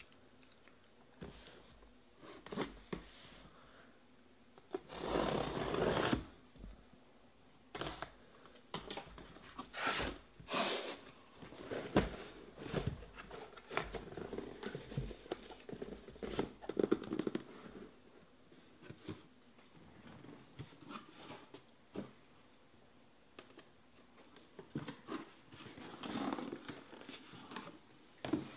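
Cardboard shipping case and the card boxes inside being handled: scattered knocks, rustles and scrapes as the case is opened and lifted off the boxes and the boxes are set down in a row, with a longer scraping rustle about five seconds in.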